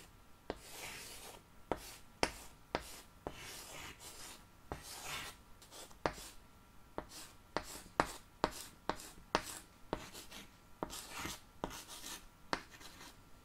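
Writing by hand: a pen scratching out short strokes, broken by many sharp taps and clicks.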